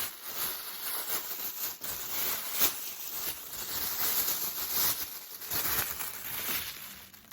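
Rustling and crinkling of packaging being handled and sorted through, a busy run of small crackles and taps.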